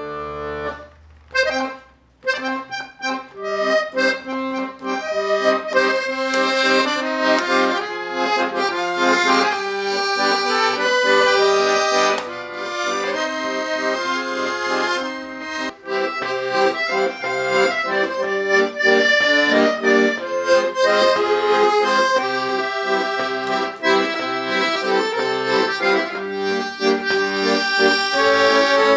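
Accordion playing a tune, a melody over bass notes and chords, as a sound test of the instrument. A few short detached notes open it, then the playing runs on continuously with brief breaks twice.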